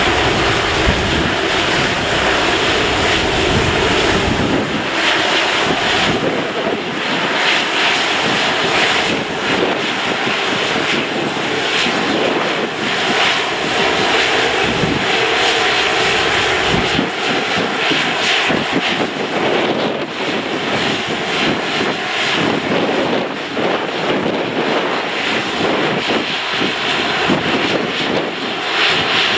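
Airbus A330-243F freighter's Rolls-Royce Trent 700 jet engines running at taxi power: a steady, loud jet whine and rush. A deep rumble sits under it for the first five seconds or so.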